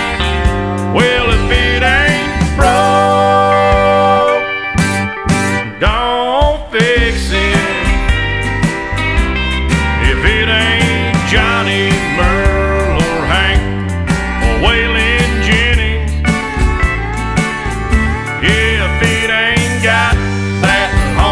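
Country song, an instrumental break: a lead line bending up and down in pitch over bass and backing.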